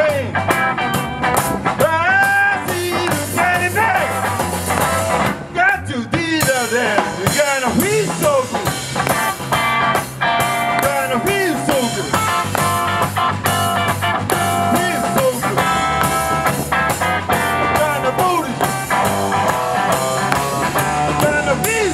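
Live rock band playing: electric guitar with bending notes over a drum kit, continuous and loud.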